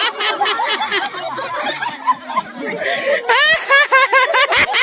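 A group of women laughing together, overlapping snickers and chuckles, with a higher-pitched burst of laughter about three seconds in.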